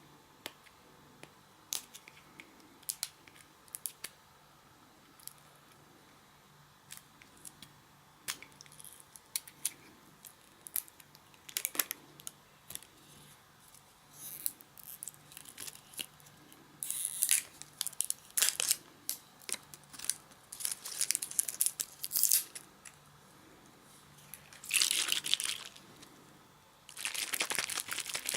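Slime being squeezed and stretched by hand, making sharp sticky pops and clicks. These are sparse at first, become denser crackling after about halfway, and turn into continuous crackling near the end.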